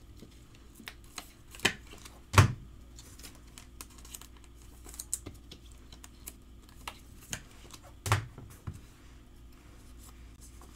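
Baseball trading cards being handled and flipped through by hand: scattered light clicks and taps of cards against each other and the table, the loudest a knock a little over two seconds in and another near the end, over a faint steady hum.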